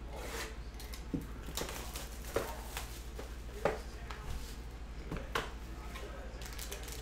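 A cardboard trading-card hobby box being handled by hand and opened, its lid lifted off to show the packs. Scattered brief scrapes, taps and rustles, over a steady low hum.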